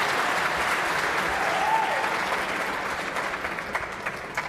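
Audience applauding, with a cheer about a second and a half in; the applause dies away to a few scattered claps near the end.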